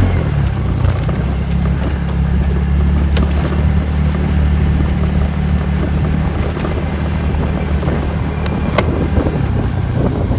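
TVS Ntorq 125 scooter's single-cylinder four-stroke engine running steadily while riding over a dirt track, under a rushing noise of wind and tyres. Two sharp ticks stand out, one about three seconds in and one near the end.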